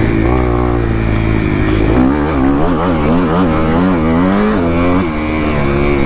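Kawasaki KX250F single-cylinder four-stroke dirt bike engine running under throttle: steady at first, then its revs rise and fall quickly several times from about two seconds in before settling again near the end.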